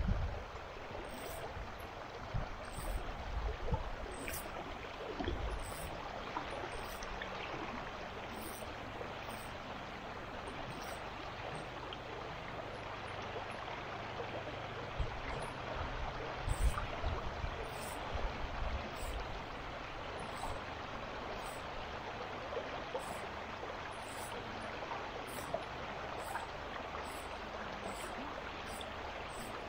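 Stream water running steadily over rocks. A few low thumps come near the start and again about halfway through.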